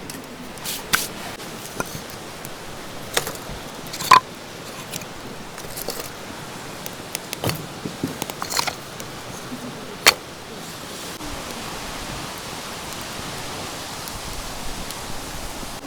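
Scattered clicks and light clinks of gear being handled, with one short ringing metallic clink about four seconds in and a sharp click about ten seconds in, over a steady outdoor hiss.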